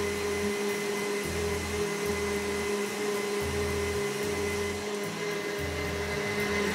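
KitchenAid stand mixer running steadily at speed, its wire whisk beating egg whites with caster sugar into meringue for macarons. A steady motor whine with no change in speed.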